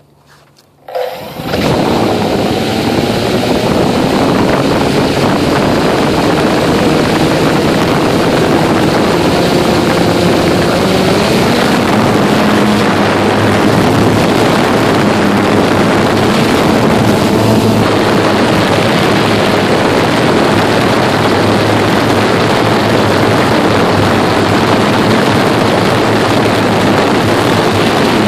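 Blade 350 QX quadcopter's four motors and propellers spinning up about a second in, then running loud and steady, heard up close.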